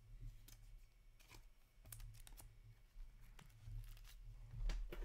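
Hockey trading cards and foil pack wrappers being handled on a table: scattered soft clicks, slides and rustles over a steady low hum, with a louder tap shortly before the end.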